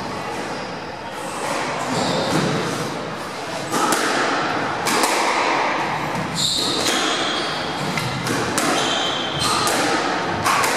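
Squash rally: a string of sharp cracks of the ball off rackets and court walls, roughly one a second, starting about four seconds in, with brief high squeaks of shoes on the wooden floor between the shots.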